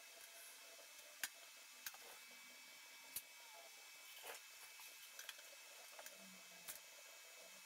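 Near silence: a faint steady hiss with a handful of sharp clicks and taps, from welding tools (pliers, TIG torch and filler rod) being handled on a steel welding table while the arc is off.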